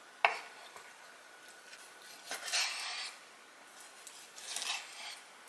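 Chef's knife cutting raw chicken thigh on a wooden cutting board. A sharp knock of the blade on the board comes just after the start, then two short slicing strokes about two and a half and four and a half seconds in.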